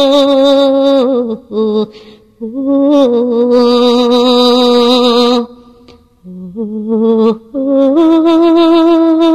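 A woman singing a slow Albanian lament (këngë vaji) in long held notes with a wide vibrato, phrases of two to three seconds broken by short pauses. There is a brief near-silent break a little past the middle, and she then rises into another long held note.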